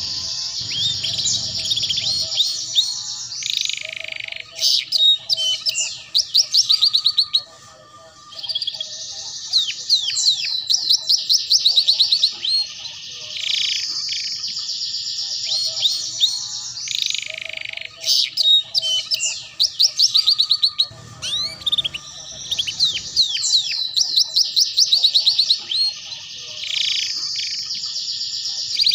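Domestic canary singing: long phrases of rapid, high trills and fast rolling chirps, broken twice by short pauses. This is the fast chattering 'ngeriwik' style of canary song.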